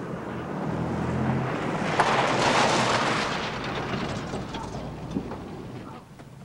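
Pickup truck driving on a dirt road: a steady engine and road hum, then a loud rush of tyre and gravel noise about two seconds in that fades away as the truck comes to a stop.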